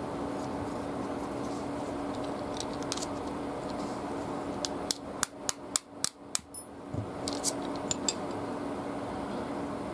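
A run of about a dozen small, sharp metallic clicks and clinks, bunched about halfway through, as the steel liners, pivot and screws of a folding knife are taken apart and handled. A faint steady hum lies underneath.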